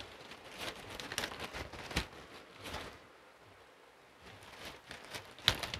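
Plastic mailer pouch crinkling and rustling in the hands as it is handled to be opened, in scattered crackles with a quieter stretch in the middle.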